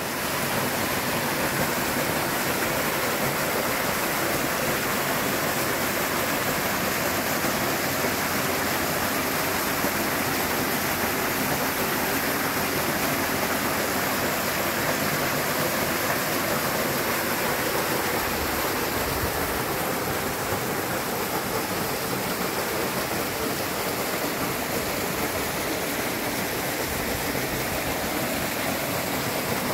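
Steady, loud rushing of running water, like a waterfall or fast stream, with no break.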